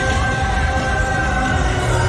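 Parade music played from the passing floats' loudspeakers, with a long held note.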